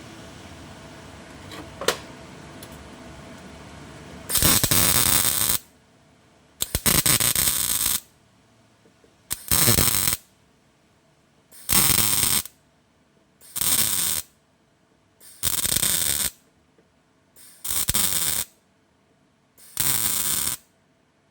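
MIG welder laying a row of short tack welds on sheet-steel repair panels: eight bursts of arc noise, each about a second long and about two seconds apart, starting about four seconds in.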